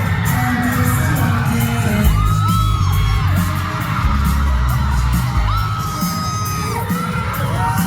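Loud live pop concert music heard from the audience, bass-heavy and distorted, with fans screaming long, high cries over it.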